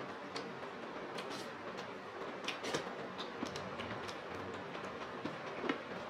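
Eating sounds: scattered soft clicks and smacks of mouths chewing and hands mixing rice with chicken curry, over a steady faint hiss.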